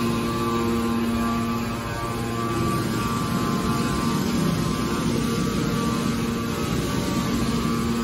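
Hydraulic waste steel baler running: a steady mechanical hum carrying a few steady tones, which fade a couple of seconds in and come back near the end.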